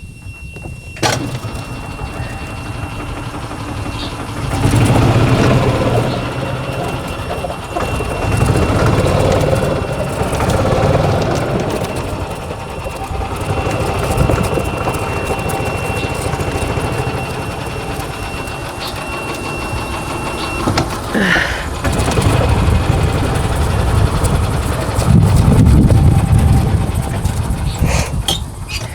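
Pickup truck engine starting about a second in, then running as the truck is driven and repositioned, swelling in level several times. A thin, steady high tone sounds through the first twenty seconds, and there is a short squeak a little after it stops.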